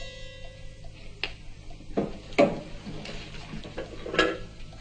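Clock ticking about twice a second, with a few sharp knocks and clatters over it; the loudest comes about two and a half seconds in.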